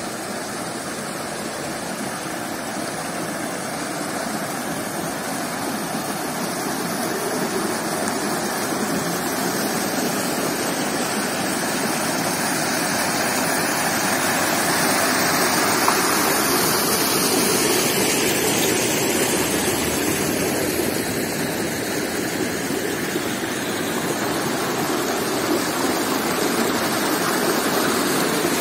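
A small mountain stream rushing and splashing over rocks and a little cascade, a steady noise that swells over the first half and then holds.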